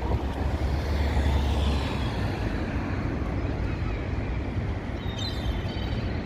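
Steady city road traffic, with a heavy vehicle's low engine rumble strongest for the first two seconds. A gull gives a short call about five seconds in.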